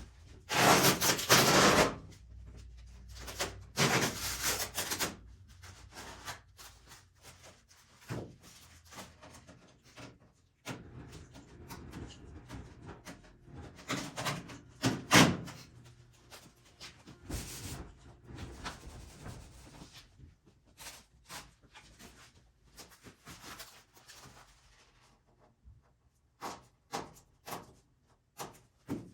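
Irregular rubbing and scraping with light knocks, from hands working on a fiberglass car body: strongest in a few bursts, with short scattered knocks near the end.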